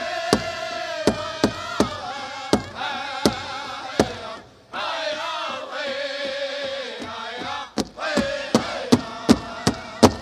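Powwow drum group singing in high, chanting men's voices over a big bass drum struck in unison. The drum drops out about four seconds in while the singing goes on, then comes back near the end with quicker beats.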